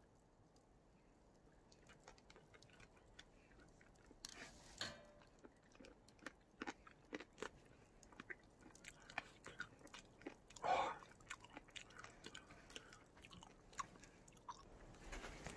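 A man chewing a roasted chestnut, faintly, with scattered small crunches and clicks; two slightly louder bites come about four and a half and eleven seconds in.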